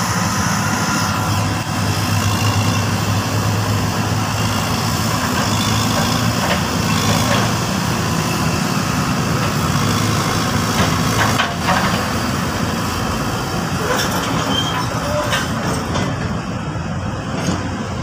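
Diesel engines of hydraulic excavators running steadily under load as they dig, with a low hum and a few short knocks.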